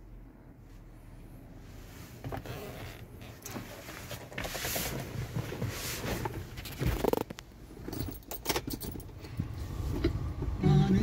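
Keys jangling and clicking as the ignition key is handled and put into the ignition switch, among knocks and rustling from moving about the truck cab.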